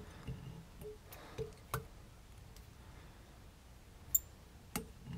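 Light, scattered clicks and ticks from a wire whip-finish tool working tying thread around a fly hook held in a vise, about half a dozen over the few seconds.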